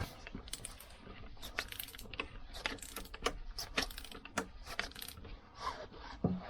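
Irregular metallic clicks and clinks of hand tools and small steel engine parts being handled and set against each other.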